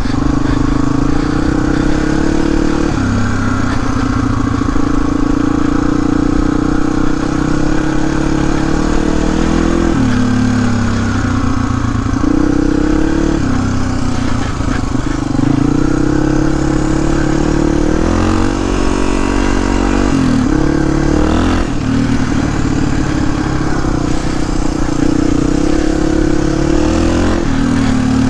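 Suzuki DR250S single-cylinder four-stroke engine with a Dominator R exhaust, running under way. The engine note drops and then climbs again several times as the throttle is eased and reopened.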